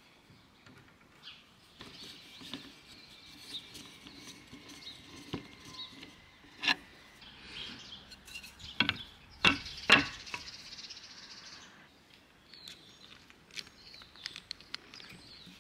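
Light clicks, taps and knocks of wooden chair slats, metal hinge parts and hand tools being handled during disassembly, with a few sharper clicks about halfway through.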